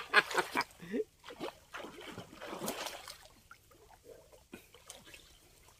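Splashing and sloshing in shallow water for about two seconds, then dying away to a few faint ticks and small splashes.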